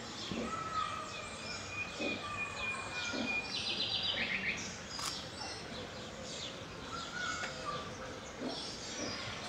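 Small birds chirping and singing over steady outdoor background noise, with a held whistled note early on and a rapid trill near the middle. A single sharp click about halfway through.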